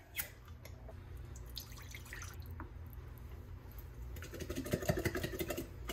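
Home-canned chicken being shaken out of an upturned glass pint jar into a glass bowl: faint taps and drips of the jar liquid, then a louder patch of wet sounds with a few soft knocks near the end as the meat slides out.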